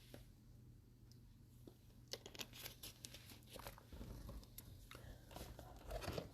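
Faint handling noise of trading-card packs and cards: scattered soft clicks and rustles of wrapper and card stock, sparse at first and busier from about two seconds in.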